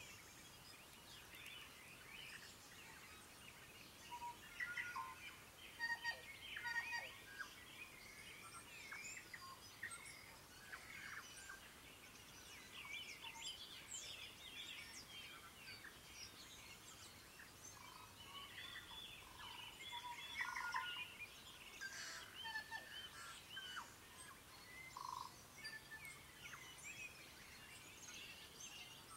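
Morning dawn chorus of many songbirds heard from inside a tent: faint, overlapping chirps and whistles, busiest about five to seven seconds in and again around twenty seconds in.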